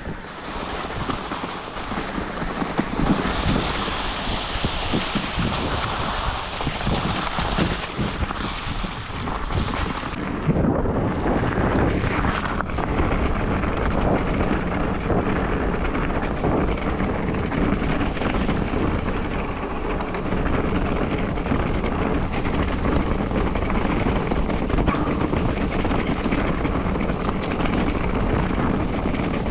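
Wind rushing over the microphone as a mountain bike descends fast, its tyres rolling through dry fallen leaves. From about ten seconds in it switches to a rough stony track, with a denser rumble and the bike rattling over the stones.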